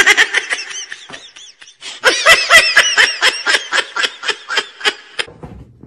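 A high-pitched, squeaky giggling laugh: a rapid run of short squeals that each rise and fall in pitch, about five a second. It grows loudest about two seconds in and stops about five seconds in.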